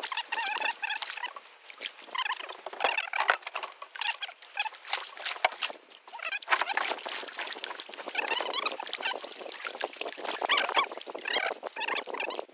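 Kayak paddle strokes: water splashing and dripping off the paddle blades, over and over, with birds chirping over it.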